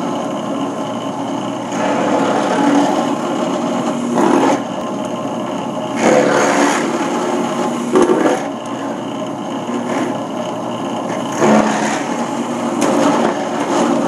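Drill press motor running steadily while its bit grinds into the pop rivets holding a steel wear strip to a snow shovel, getting louder each time the bit is fed down into a rivet, about two, six, eight and eleven and a half seconds in.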